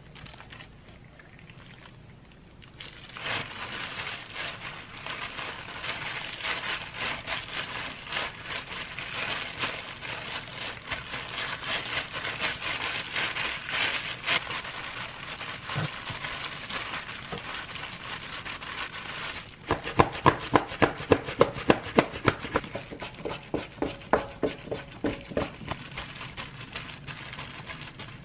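Thin plastic disposable gloves crinkling as gloved hands press and knead a crumbly dough on a silicone baking mat. Later comes a quick run of pats, about four a second, as the dough is patted flat.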